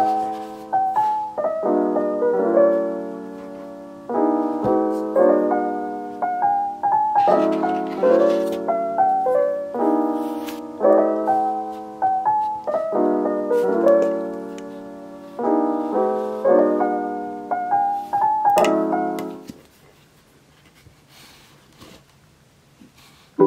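Soft background piano music, a run of gently struck chords and melody notes that each die away. It stops about four seconds before the end, leaving a faint, quiet gap.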